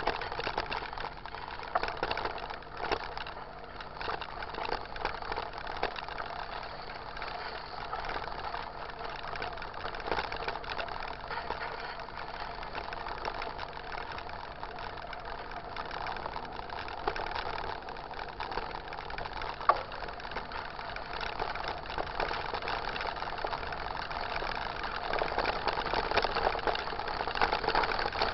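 Mountain bike rolling over a wet, rough road: steady tyre noise with the bike rattling and clicking over the bumps.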